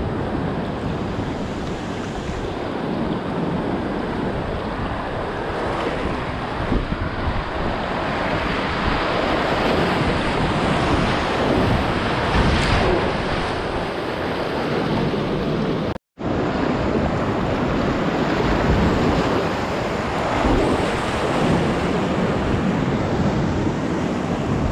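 Creek whitewater rushing steadily around a kayak running a rapid, heard from right on the water, with wind on the microphone. The sound cuts out abruptly for a split second about two-thirds of the way through.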